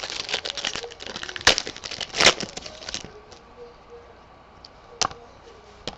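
A trading-card pack's foil wrapper being torn open and crinkled, a rapid crackle lasting about three seconds with two sharp snaps in it. Then a single click.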